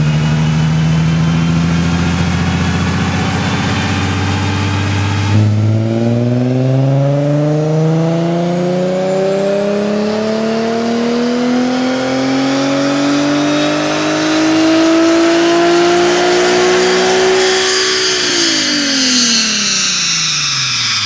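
Infiniti G37S 3.7-litre V6 exhaust through a Tanabe Y-pipe, midpipe and prototype Medalion Touring muffler, running steadily at first. About five seconds in, the revs drop and then climb in one long smooth pull of about thirteen seconds, falling away quickly near the end.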